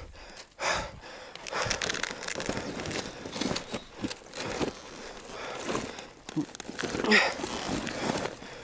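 Rustling and scraping of riding gear against rocks and the fallen motorcycle, with a pinned rider's heavy breathing as he strains to free his trapped leg, in irregular bursts every second or so.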